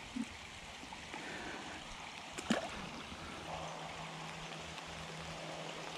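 Steady hiss of rain falling on the surface of a slow creek, with one brief sharp sound about two and a half seconds in.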